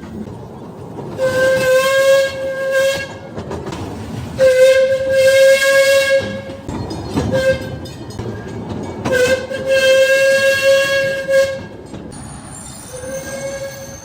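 Train horn sounding a single-note tone in a pattern of three long blasts of about two seconds each, with two short toots between, over the rumble of the moving train.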